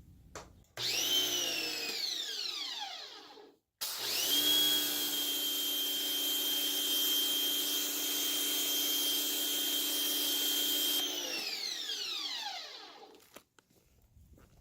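Portland 1750 PSI electric pressure washer's motor and pump running in two goes: a short start that winds down with a falling whine, then a longer run of about seven seconds at a steady high whine that winds down again when it stops.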